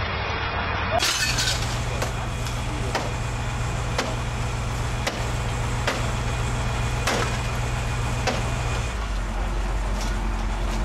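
A vehicle engine running steadily at a low drone, which shifts lower about nine seconds in. Over it come sharp knocks and cracks every second or so, as of hard roofing being struck or broken.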